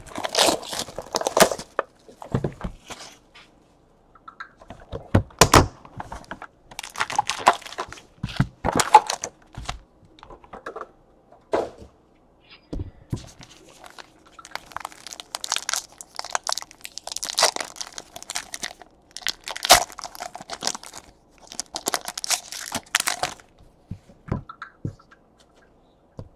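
Trading-card pack wrappers and boxes being torn open and crinkled by hand, in repeated short bursts of tearing and rustling with a few sharp knocks on the table between them.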